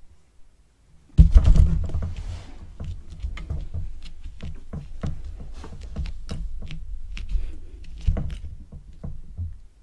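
A cat rubbing against a close microphone: rustling fur with a heavy low rumble and many small bumps and clicks, starting suddenly with a loud thump about a second in and another strong bump near the end.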